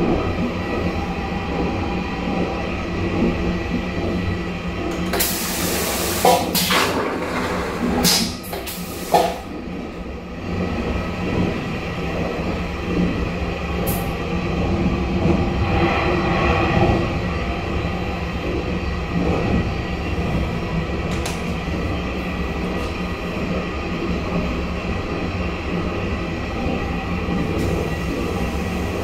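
EVAC vacuum toilet flushing: a short, loud hissing rush about five seconds in, followed by a few clicks. Under it runs the steady rumble of a moving train.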